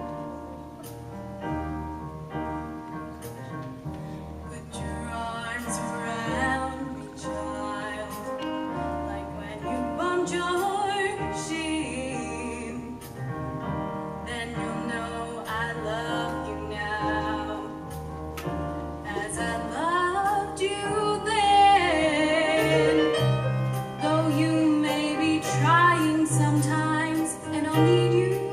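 A woman singing a slow solo ballad over instrumental accompaniment, the voice coming in a few seconds after the accompaniment and swelling with vibrato towards the middle.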